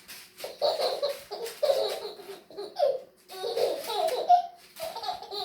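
A baby laughing in a quick run of short, high-pitched bursts.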